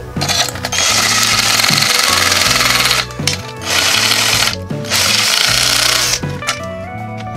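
Cordless drill with a step drill bit cutting into a metal floodlight housing to widen a cable hole, in three bursts of drilling with short pauses between them.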